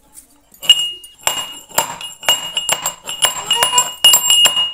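Small metal mortar and pestle being pounded by hand: the pestle strikes the metal cup again and again, each hit clinking and ringing. The strikes begin about half a second in, roughly two a second at first, and come faster toward the end.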